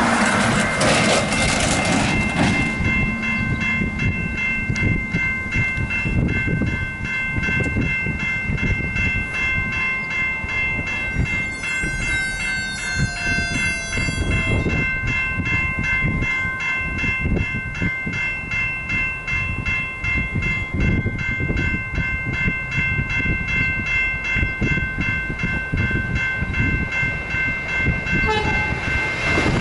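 Level crossing warning bells ringing continuously in a steady, even rhythm. A truck drives across in the first two seconds, and about halfway through there is a squeal of about three seconds as the boom gates come down.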